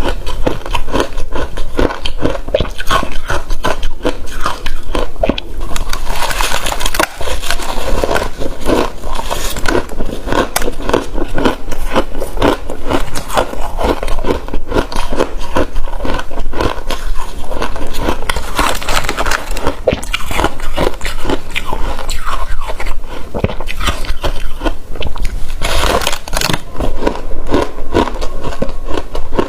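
Frozen passion fruit ice being bitten and chewed, with continuous, rapid icy crunching and crackling.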